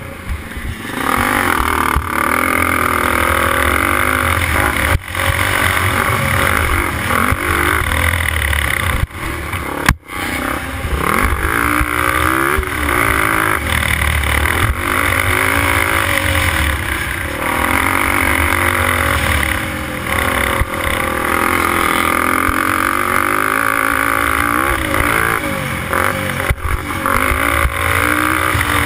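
Race quad engine revving hard at racing speed, its pitch rising and falling as it runs through the gears. The throttle drops off sharply for a moment about five seconds in and again about ten seconds in.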